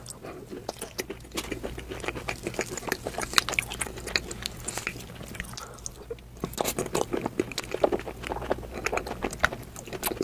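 Close-miked mouth sounds of someone eating ice cream cake: chewing with a dense run of small wet clicks, pausing briefly about six seconds in.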